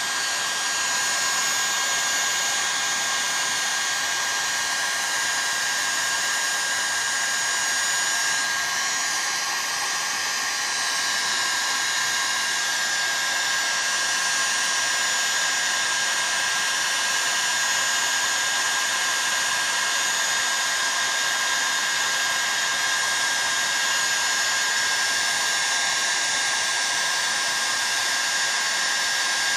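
Heat gun running steadily, a rush of hot air with a steady high whine through it, heating a chainsaw crankcase's main bearing toward about 230 degrees so the case can be assembled.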